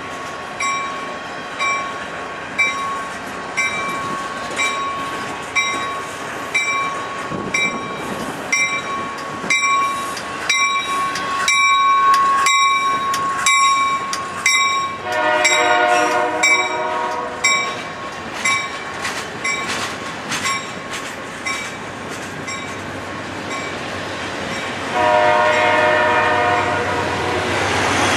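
Passing train's wheels clicking over rail joints in an even rhythm that speeds up, with a thin steady whine. Then an Amtrak California locomotive's horn sounds a multi-note chord, two blasts of a couple of seconds each, one about halfway through and one near the end.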